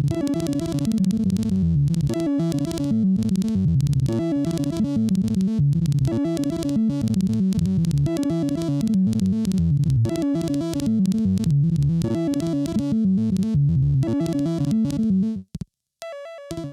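Lorre-Mill Double Knot V2 synthesizer playing a fast, repeating sequence of pitched notes. It stops about fifteen seconds in, and a few short notes follow near the end.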